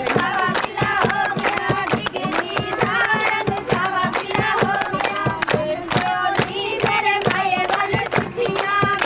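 Traditional Punjabi tappay folk song: voices singing to a steady, dense percussion beat. It cuts off suddenly at the end.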